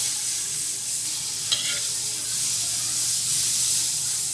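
Margarine sizzling as it melts in a hot metal wok, stirred with a spatula. One sharp tap of the utensil against the pan comes about a second and a half in.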